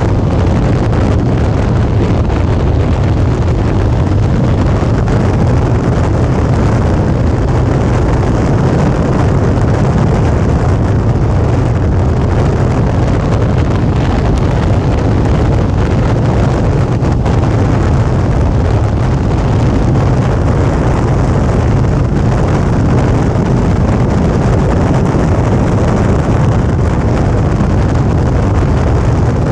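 Suzuki V-Strom 650's V-twin engine running at a steady cruise, with wind rushing over the microphone. The level and pitch stay even throughout, with no gear changes or revving.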